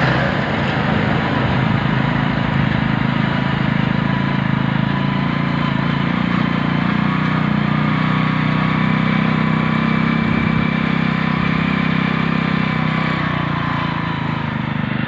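Motorcycle engine running steadily under way, heard from the pillion seat.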